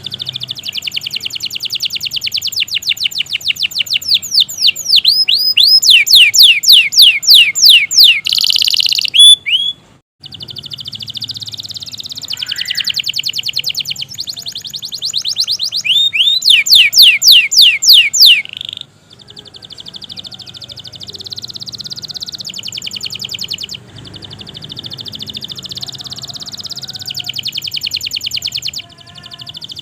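Domestic canary singing a long, continuous song of rapid rolling trills, made of fast repeated notes and quick downward-swept whistles, with brief pauses about ten seconds in and again near two-thirds of the way through.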